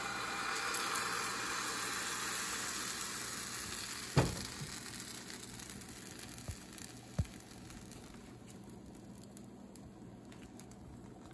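Pancake batter sizzling as it is poured into a hot, oiled frying pan. The sizzle is loudest at first and dies down over several seconds. A single sharp knock comes about four seconds in.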